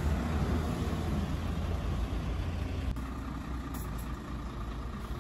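Road traffic: a steady low rumble of motor vehicles running past.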